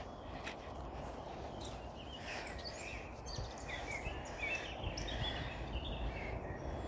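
Small birds chirping in the trees over a steady outdoor background noise. The chirps are clearest from about a second and a half in.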